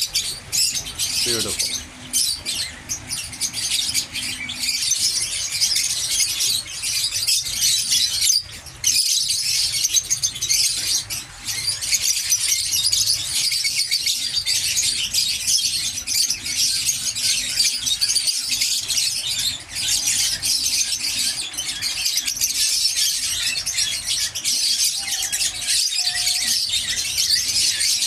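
A dense, continuous chorus of high chirping from many small birds in an aviary.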